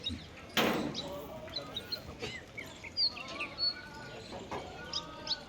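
Small birds chirping repeatedly, with a short loud rush of noise a little over half a second in. In the middle, a few drawn-out calls waver in pitch.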